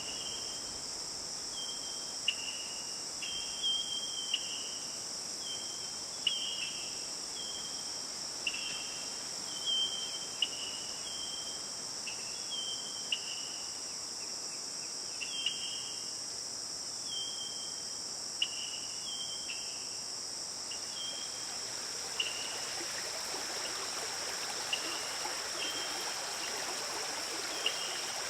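Steady high-pitched insect chorus, with short chirps repeating about once a second over it. About two-thirds of the way through, the sound of a flowing stream comes in beneath them.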